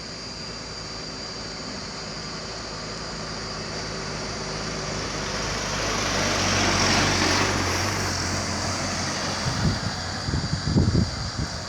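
A vehicle passing by, its noise swelling to a peak about seven seconds in and then fading, over a steady high drone of insects. A few low thumps come near the end.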